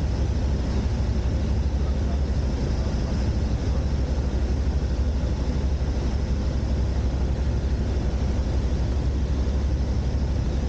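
Van's RV-12's Rotax 912 engine and propeller droning steadily in flight, heard inside the cockpit, with a deep, evenly pulsing throb.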